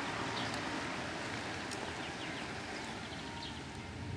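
Outdoor town-square ambience: a steady hum of distant traffic and wind, with a few short high chirps of small birds in the trees.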